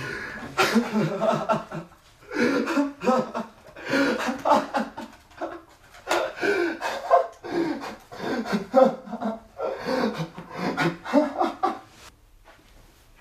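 A man laughing in repeated bouts, with breaths between them; the laughter stops near the end.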